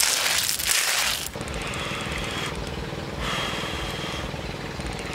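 Shells clattering and sizzling in a wok as a pan of clams is stirred with tongs. About a second in this stops, and a steady, low mechanical throbbing is left.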